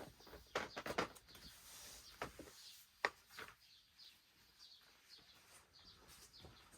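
Small birds chirping faintly, with a few sharp clicks and knocks in the first three seconds.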